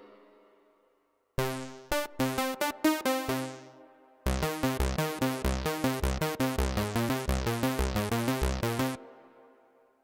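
TAL-U-NO-LX software synthesizer, a Roland Juno-60 emulation, playing keyboard presets. A short phrase of plucked notes comes about a second and a half in. After a pause, a fast, even run of short notes on the 'KBD Funk A' preset starts about four seconds in and stops near the end with a brief decay.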